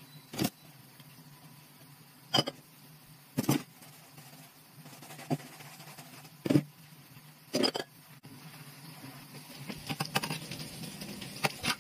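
Glass bowls and dishes being hand-washed in a stainless-steel sink: about six sharp clinks and knocks, a second or two apart, as they are handled and set down, then a busier patch of rubbing and small clatter near the end.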